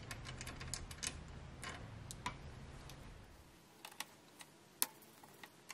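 Faint, scattered small metallic clicks and ticks as hand-tight lock nuts are spun off their bolts by hand and handled on a recliner's steel drive-rod mechanism, with a few sharper clicks near the end.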